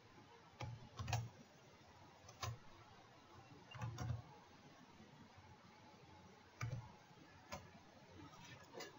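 Computer keyboard keystrokes, faint: about eight slow, separate key taps spaced unevenly, typed one key at a time.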